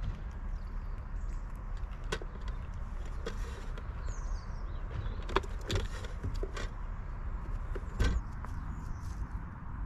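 Outdoor garden ambience: a steady low rumble with scattered knocks and clicks, the sharpest about eight seconds in, and a few faint high bird chirps.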